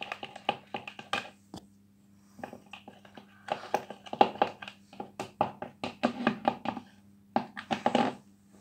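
Spatula stirring white glue and body lotion in a bowl: runs of wet, sticky clicks and taps, with short pauses about two seconds in and about seven seconds in.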